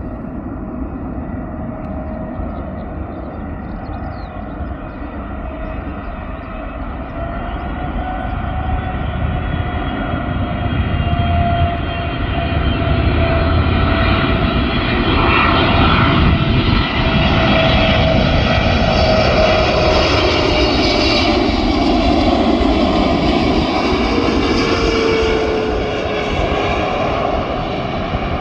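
Boeing 777-300ER's GE90 turbofan engines, a steady rumble with a fan whine, growing louder as the airliner approaches on landing. It passes by at its loudest, and near the end the whine drops in pitch as it moves away.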